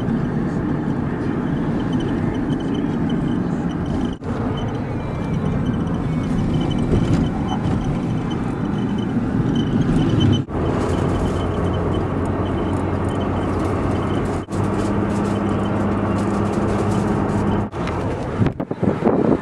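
A van driving on the road, heard from inside the cab: a steady engine hum with tyre and wind noise. It breaks off briefly several times where short clips are joined.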